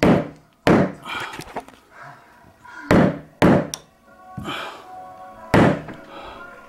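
A hammer tapping a cut-off pencil stub into a stripped screw hole in a wooden door jamb, plugging it so the hinge screw will grip again. There are five sharp knocks, irregularly spaced, a second or more apart.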